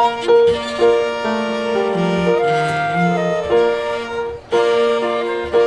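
Chamber ensemble of flute, violin, cello and piano playing together, with long held melody notes over moving lower parts. About four and a half seconds in the sound briefly drops away before the phrase starts again.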